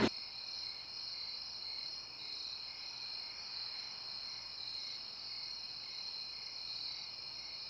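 Steady high-pitched chorus of insects, a continuous trill that holds unchanged throughout.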